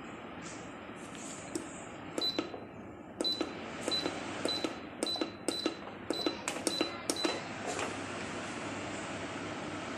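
Hitachi tower fan's control panel beeping about ten times as its buttons are pressed, roughly two beeps a second, over the steady airy hiss of the freshly cleaned fan running.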